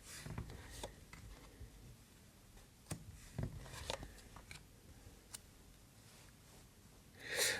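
Faint, scattered clicks and soft rustles of tarot cards being handled and laid out on a table.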